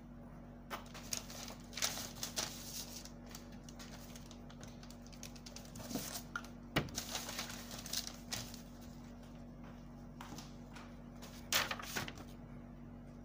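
Paper pattern being handled and drawn on: irregular bursts of rustling and scraping about a second in, again from about six to eight seconds in with one sharp tap, and once more near the end, over a steady low hum.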